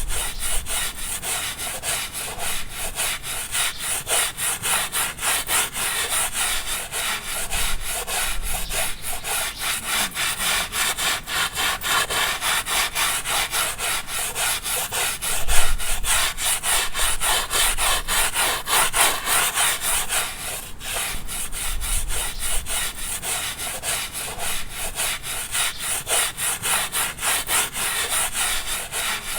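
Stiff brush scrubbing a hand-woven carpet, in steady back-and-forth strokes about twice a second.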